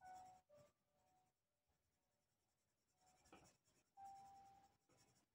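Faint scratching of a Derwent Coloursoft coloured pencil shading on paper in a few short, irregular stretches of strokes.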